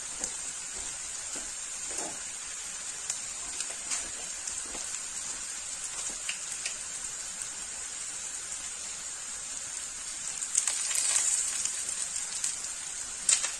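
Chicken, mushrooms, carrot and onion frying in a stone-coated pan: a steady sizzle with scattered small pops. The sizzle grows louder for about a second near the end.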